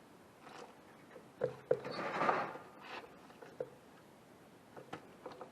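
Hands handling PC parts: a few light knocks and clicks, with about a second of rustling and scraping near the middle.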